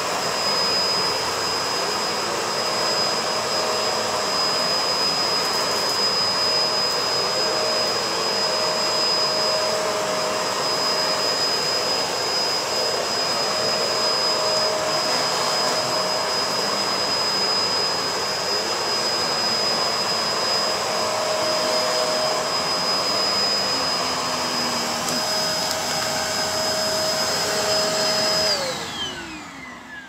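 BISSELL MultiClean Allergen Pet Slim upright vacuum cleaner running steadily on carpet, its motor giving a high whine over a steady rush of suction. Near the end the motor winds down, its whine falling in pitch as it fades.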